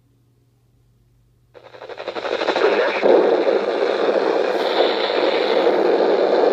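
Weather radio receiver static: near silence with a faint hum, then about a second and a half in a loud burst of dense crackling radio noise starts abruptly and keeps on.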